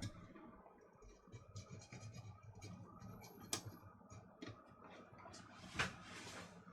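Faint scratching and light clicks of the brushes in a small coffee grinder's motor being moved by hand, with a sharper click about three and a half seconds in and a louder click followed by a brief rustle near six seconds. No motor hum: the motor stays dead.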